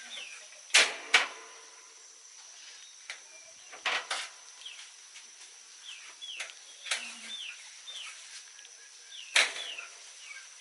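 Chickens peeping and clucking in short falling chirps, with several sharp clicks and knocks, the loudest about a second in, again around four seconds and near the end.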